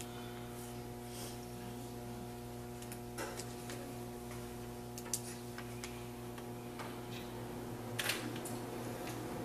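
Steady electrical mains hum with a few faint scattered clicks and knocks, the clearest about eight seconds in.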